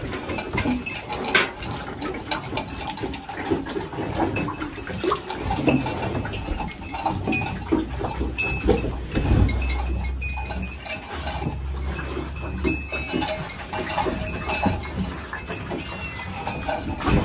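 Cow-barn sounds as a cow's udder is wiped with a cloth before hand milking: scattered knocks and rustling, with farm animals heard. A low rumble comes in for a few seconds in the middle.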